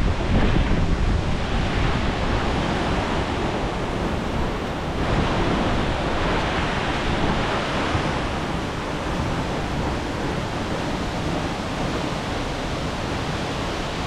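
Steady rushing of a tall waterfall, about 60 metres high, pouring into its plunge pool, with wind and spray buffeting the microphone, most heavily near the start.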